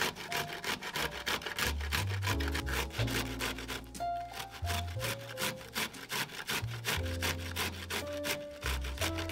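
Broccoli florets rubbed against a stainless steel box grater, a quick even run of rasping strokes several times a second as the florets are grated into fine crumbs. Soft background music plays underneath.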